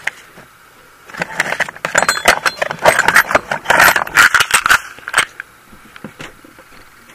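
Small metal tools and drill bits clinking and rattling as they are handled and shifted in a machinist's tool chest tray. A busy run of clatter starts about a second in and lasts some four seconds, then thins to a few scattered clicks.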